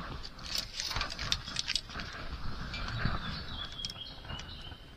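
Scattered small clicks and clinks of tools and parts being moved about on a cluttered metal workbench tray, with multimeter probe leads being handled.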